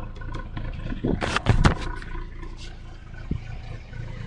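1995 Mazda MX-5 Miata's 1.8-litre four-cylinder engine idling with a knock, which the owner suspects is a bad bearing. Several loud noisy bursts come about a second in.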